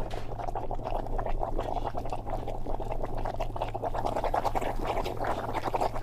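Cappuccino machine's steam wand frothing milk: a continuous gurgling, crackling hiss over the machine's steady low hum.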